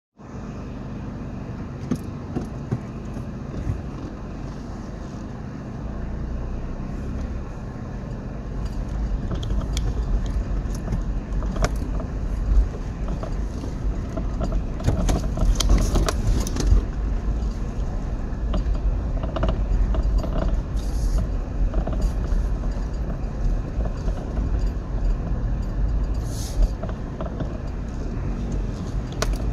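Inside the cabin of a 2005 Toyota Prado driving a rough dirt forest track: a steady low engine and road rumble that grows louder about six seconds in, with scattered knocks and rattles as the vehicle bumps over the ruts.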